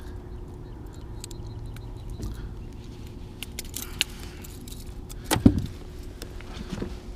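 Small metallic clicks and rattles of pliers and a crankbait's hooks as a largemouth bass is unhooked, with a sharp click about four seconds in and a louder thump a second later, over a faint steady hum.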